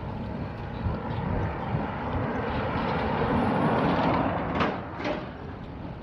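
Wind buffeting the microphone and tyre rumble of a bicycle being ridden, growing louder past the middle, with two sharp knocks close together near the end.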